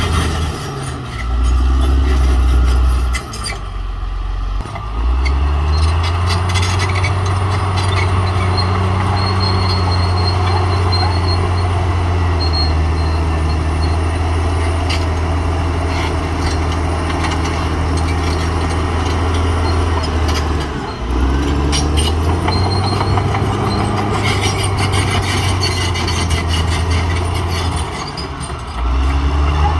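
Caterpillar D6R XL crawler dozer working: its diesel engine runs steadily under load, the engine note dropping and recovering several times, about a second in, around four to five seconds, at about twenty-one seconds and near the end, over a constant clanking from the steel tracks.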